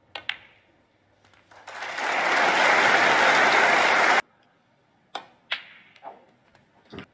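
Snooker cue tip striking the cue ball and the white clicking into the black, then crowd applause for about two and a half seconds as the black is potted to put the frame beyond reach; the applause cuts off abruptly. Further sharp clicks of cue and balls follow.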